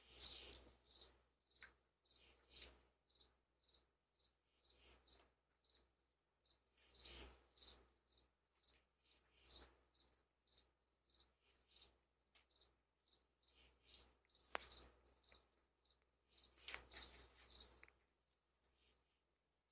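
Scratchy rustles and scrapes of an opossum's fur and body rubbing against the doorbell camera, coming in scattered bouts. Under them a cricket chirps steadily, about three chirps a second.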